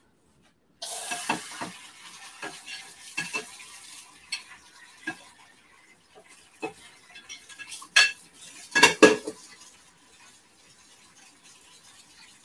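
A plate and fork being rinsed in a kitchen sink: a hiss of running tap water near the start, then scattered clinks and knocks of metal cutlery against the plate, with the loudest clatters about eight and nine seconds in.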